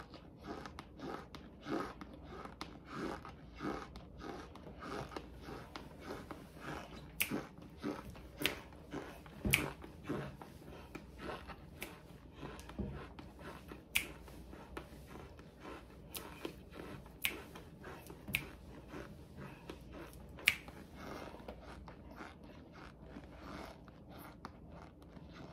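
A mouthful of cornstarch chewed close to the microphone: steady soft chewing with sharp crunches scattered through, the loudest about twenty seconds in.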